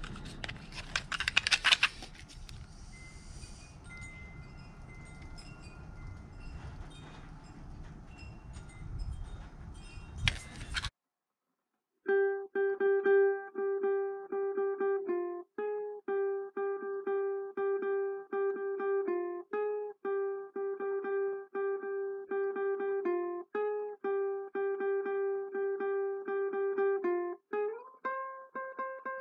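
Background clatter and handling noise with a few sharp clicks, then after a brief silence a ukulele playing a march tune as background music, plucking one repeated note in a steady rhythm and stepping up in pitch near the end.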